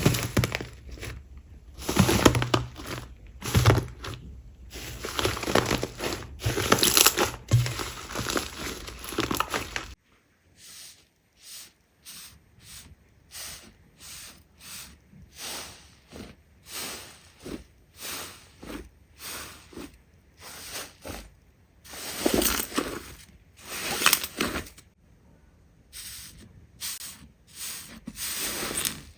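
Slime being squeezed and pressed by hand, making crackling, crinkling squishes. About ten seconds in, the sound changes abruptly to quieter, separate squishes, roughly one a second.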